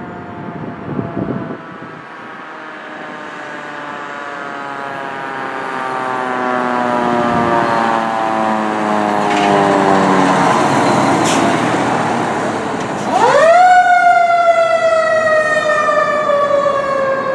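Fire engine's mechanical siren coasting down in one long, slow falling tone that grows louder as the 2020 Rosenbauer Commander pumper approaches. About 13 seconds in it is wound up again with a sharp rise and then left to wind down slowly.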